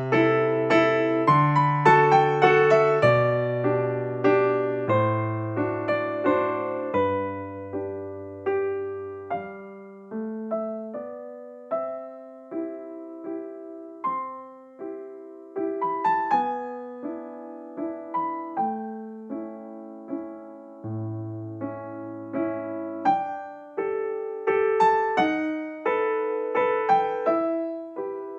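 Background music: a slow solo piano piece, each note struck and then fading, over a low chordal accompaniment.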